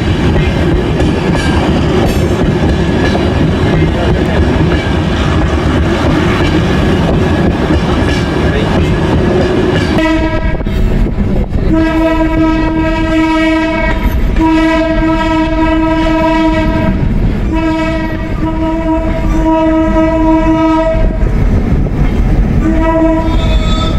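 A passenger train running, with steady rumble and wheel noise. From about ten seconds in, the locomotive's horn sounds a string of blasts on one pitch, several of them two seconds or more long, with shorter toots near the end.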